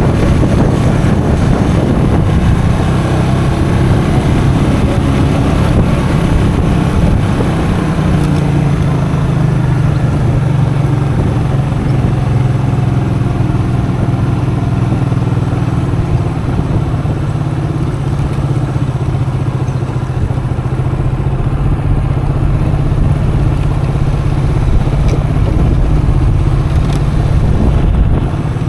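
Custom motorcycle engine running under way while riding, holding a steady pitch that rises a little about eight seconds in, over a constant rush of riding noise.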